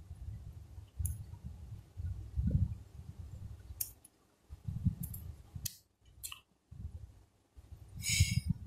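Handling sounds as the SIM card tray of a Huawei Y6 Prime 2018 smartphone is fitted back into its slot: dull rubbing of fingers on the phone and several sharp little clicks, with a quick cluster of them near the end.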